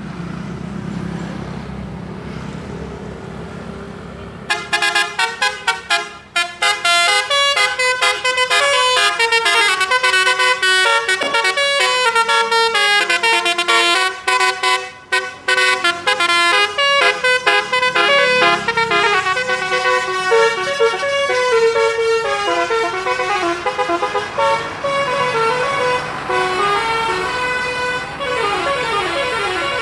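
Bus "telolet" horn: a multi-tone musical horn playing a fast tune of quickly changing notes, starting about four seconds in over the low rumble of the bus engine.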